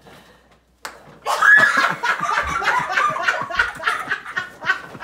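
A single sharp smack, then people laughing hard and continuously, with high shrieks of laughter at the start.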